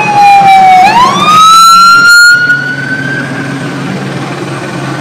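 Police siren wailing: its pitch slides down, swoops back up about a second in and holds, then cuts out around the middle, leaving a steady low rumble.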